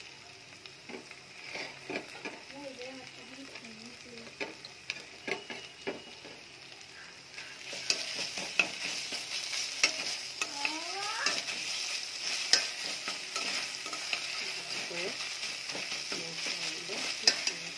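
Onions and ginger-garlic paste frying in hot oil in a pot, sizzling, while a spatula stirs and knocks against the pot. The sizzling gets clearly louder about eight seconds in.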